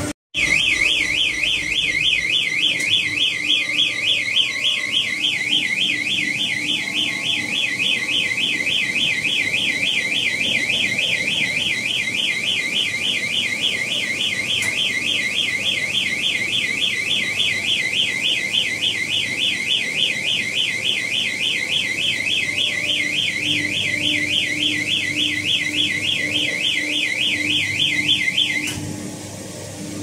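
Automatic cotton baler's electronic alarm sounding a rapid warbling tone that sweeps up and down continuously and then cuts off shortly before the end. This is the baler's full-bag alarm, signalling that the bale is pressed and ready to be tied off.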